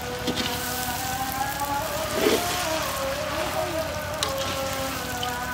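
Noodles and vegetables sizzling in a hot iron kadai while being stir-fried, with a few scrapes and knocks of a slotted metal spatula against the pan.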